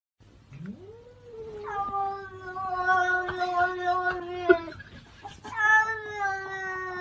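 A cat yowling in two long, drawn-out calls. The first rises in pitch and is held for about four seconds. The second begins about five and a half seconds in.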